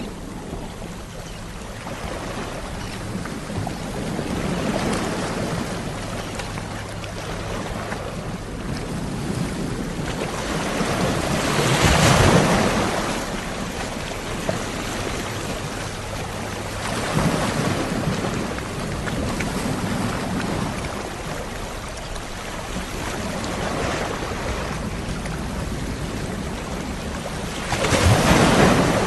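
Sea waves breaking and washing on the shore in slow swells every few seconds, with the biggest crashes about twelve seconds in, around seventeen seconds, and near the end.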